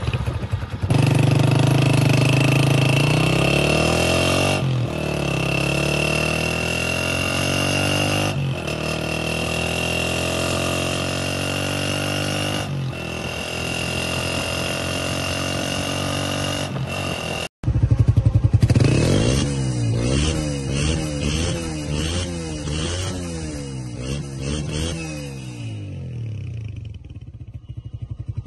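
Honda CG125 single-cylinder four-stroke engine running through a chrome aftermarket muffler, revved up and let fall back again and again. After a brief dropout about two-thirds through, quick throttle blips make the exhaust note rise and fall in a fast zigzag.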